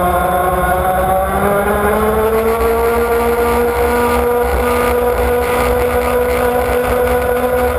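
Model offshore powerboat's motor running at high speed. Its pitch climbs over the first few seconds and then holds steady, with a low rushing rumble of the hull over the water.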